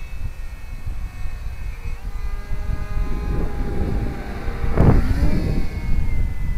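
Electric brushless motor and propeller of a foam RC Cub model plane whining in flight, growing louder and passing close overhead about five seconds in, its pitch dropping as it goes by.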